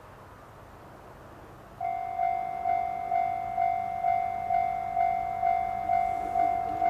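Japanese railway level crossing alarm starting up about two seconds in: a loud electronic bell tone that pulses about twice a second, the warning that a train is approaching.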